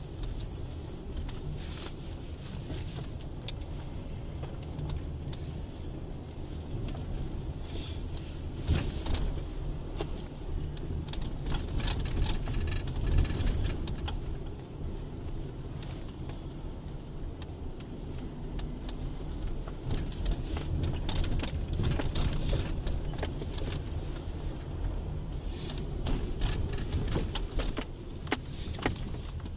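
Police patrol car being driven, heard from inside the cabin: a steady low rumble of engine and road noise, with scattered light clicks and rattles.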